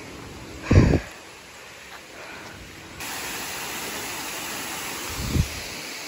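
Steady rushing of a nearby waterfall, its hiss growing louder about halfway through, with two dull thumps: a strong one about a second in and a weaker one near the end.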